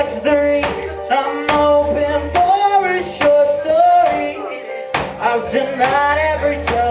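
Rock band playing: guitar, bass and drums, with a voice singing a wordless or unclear line over them.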